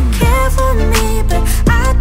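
Background song with a sung melody over a steady beat and deep bass notes that slide downward in pitch.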